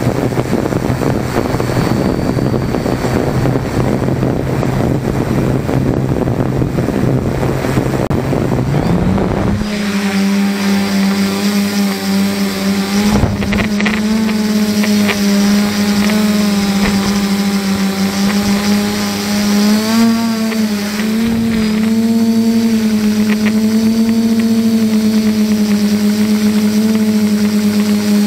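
Electric motors and propellers of a 500 mm multirotor drone with Sunnysky motors, heard through the drone's own onboard camera. The motors first spin on the ground with a low hum and a lot of vibration noise. About nine seconds in, the pitch steps up as the throttle rises for takeoff, and the drone then flies with a loud, steady, tractor-like drone that shifts slightly in pitch as it manoeuvres.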